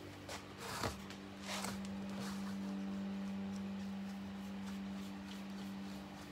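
A canvas handled and set down on a wooden table: a short scrape and a sharp knock just under a second in, then a second scrape, followed by a steady low hum that fades near the end.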